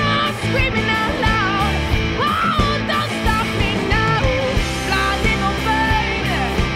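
Rock song with electric guitar, bass and drums, its melody lines sliding in pitch.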